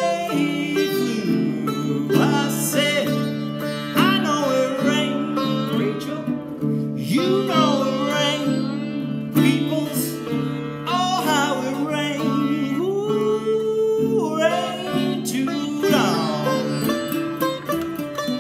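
Sitar and baritone ukulele playing together. The sitar's plucked melody slides up and down in bent, gliding notes over a steady ringing drone, with the ukulele accompanying underneath.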